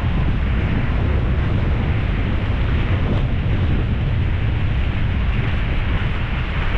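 Steady, loud wind roar buffeting an action camera's microphone while riding a mountain bike downhill in high winds.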